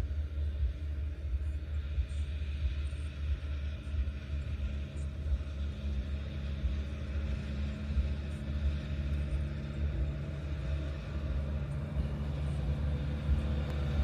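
Wind rumbling and buffeting on the microphone over the steady hum of a farm machine's engine. The engine tone rises slightly near the end.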